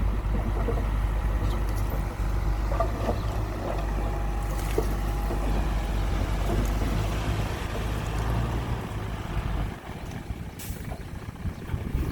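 Diesel engine of heavy earthmoving equipment running steadily under load, with a few light clanks. The engine drops off briefly near the end, then picks up again.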